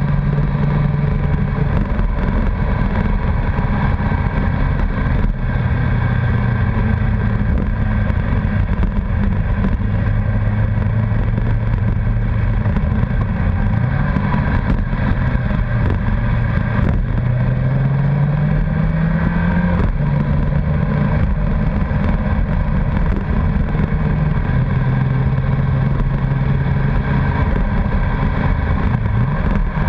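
Honda CBR1100XX Blackbird's inline-four engine running at speed, mostly holding a steady pitch, rising a few times as the throttle opens and dropping sharply about two-thirds through as with a gear change. Steady wind and road noise run underneath.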